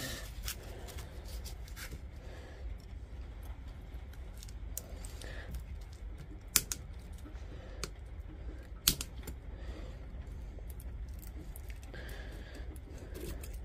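Hand tools working the nickel connector strips of an 18650 lithium-ion battery pack to free the faulty cells: small scattered clicks and scrapes, with two sharp snaps about six and a half and nine seconds in.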